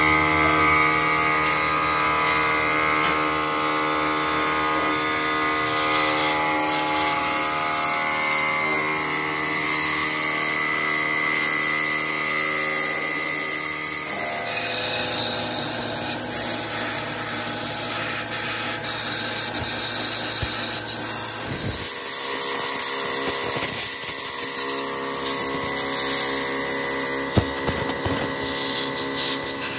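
Electric motor of a workshop power tool running steadily, with a constant hum that changes character about halfway through.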